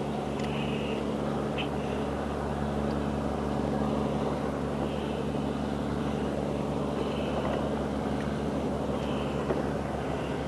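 Steady low drone of a boat engine holding one pitch, over the wash of water around the hull.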